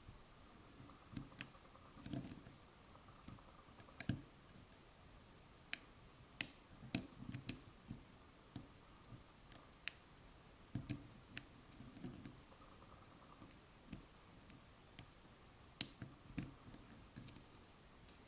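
Lock pick and tension wrench working the side pins of a Lily Water padlock: small, irregular metallic clicks and taps, a few of them sharper and louder, as the pins are probed and set.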